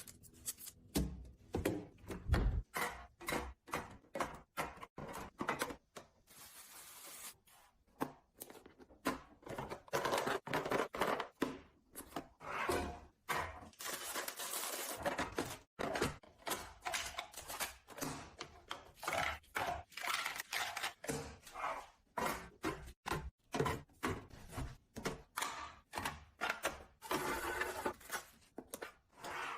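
Hard household items and containers being handled and set down in an under-sink cabinet: irregular clicks, taps and light thunks, with stretches of rustling in between.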